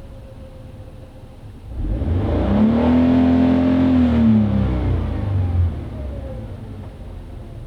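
Scion FR-S's flat-four engine idling through a GReddy EVOlution GT stainless steel cat-back exhaust, then revved up about two seconds in, held high for a couple of seconds, and falling back to idle.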